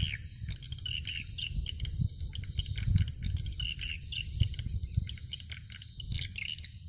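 Swiftlet calls broadcast from a swiftlet house: many short, rapid chirps repeating all through, over a low, uneven rumble that swells loudest about three and four and a half seconds in.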